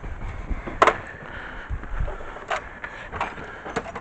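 Workshop handling noise: a run of sharp knocks and clinks as tools and parts are picked up and set down, the loudest just under a second in.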